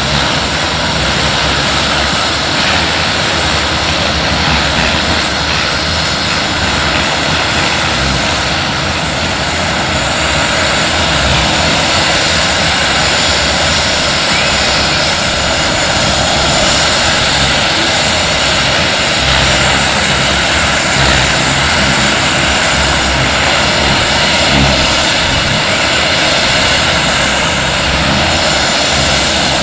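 Model gas turbine of a giant-scale RC Bell AH-1 Cobra helicopter running steadily with its main rotor turning: a constant high whine over a dense rush of turbine and rotor noise.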